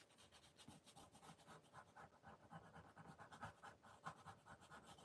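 Faint, quick, repeated scratching of a coloured pencil stroking over gouache-painted watercolour paper.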